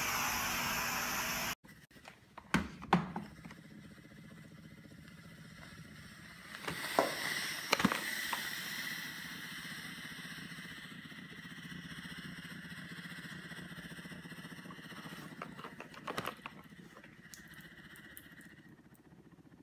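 Shark Lift-Away Pro steam mop running with a steady buzz for about a second and a half. Then a steamer nozzle blowing over a concrete floor: a hiss with a thin steady whine that cuts off near the end, and a few knocks and clatters.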